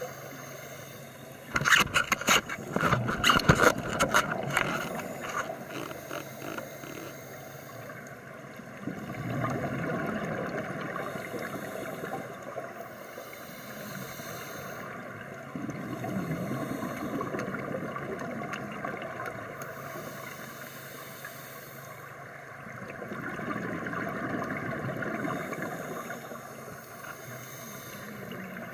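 Underwater sound of a scuba diver breathing: a loud rush of exhaled bubbles with crackling clicks about two seconds in, then further swells of bubbling about every six or seven seconds over a steady underwater hiss.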